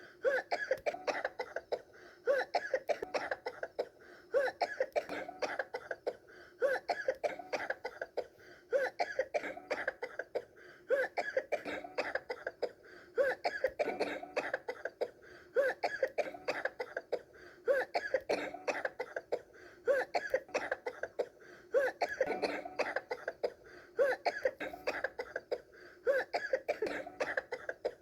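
Coughing in short fits of several quick coughs, one fit about every two seconds, repeating at a very even rhythm.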